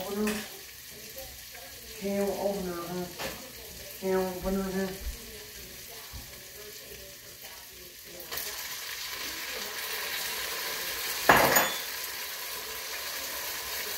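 Hamburger meat and canned pork and beans sizzling in a pot, a steady hiss that starts about eight seconds in, with one sharp clatter about three seconds later.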